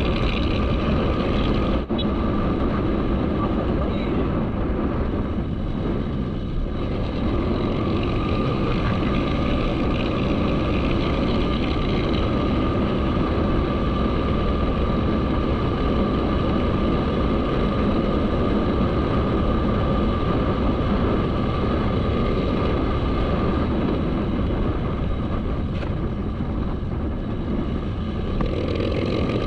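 Motorcycle engine running steadily under way, with wind rushing across the microphone.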